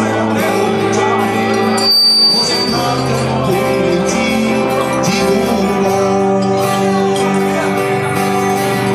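Live band music: men singing a pop ballad into microphones over guitar accompaniment.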